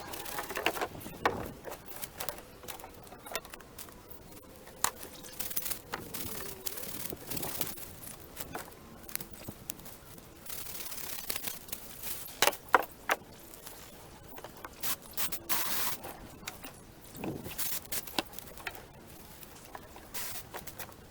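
Branches and twigs being handled, with irregular scraping, crackling and sharp knocks.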